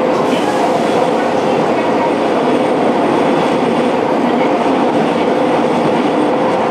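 Interior running noise of a Fukuoka City Subway 1000N series train car: a steady noise of wheels on rail with a constant whine through it, holding even throughout.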